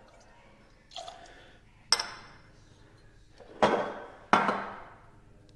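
Glass bottles and a bar jigger being handled and set down on a stone countertop: a few sharp knocks and clinks, a light click about two seconds in, then two louder knocks close together in the second half.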